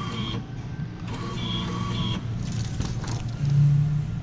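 Akiles Coil@Crim electric coil crimper working through a cycle. Its motor runs in two short pitched bursts, then a cluster of sharp clicks comes as the jaws cut and crimp the end of a binding coil, and a louder low hum follows near the end.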